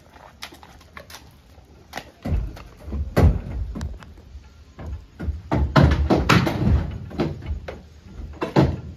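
A horse's hooves thudding and clattering on the floor of a stock trailer as it steps up and walks in: a run of irregular heavy thumps from about two seconds in, thickest toward the middle, with a few more near the end.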